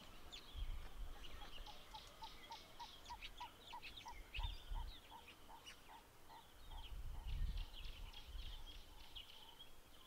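Faint wild birdsong: one bird gives a run of short, evenly spaced notes, about four a second, for several seconds, while others chirp and trill higher up. Wind buffets the microphone now and then.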